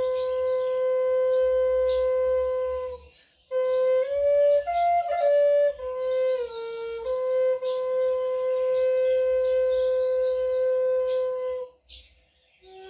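Flute playing long held notes on one pitch, with a short run of changing notes about four seconds in and a brief gap near the end, over birds chirping.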